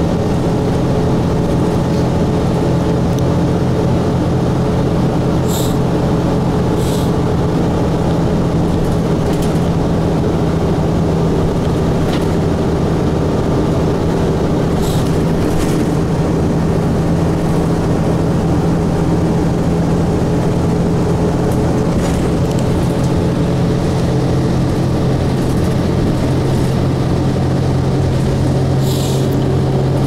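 Cummins ISC inline-six diesel engine of a 2002 Blue Bird transit bus idling, heard from inside the cabin: a steady engine hum whose note drops slightly in pitch about 26 seconds in, with a few faint clicks or rattles.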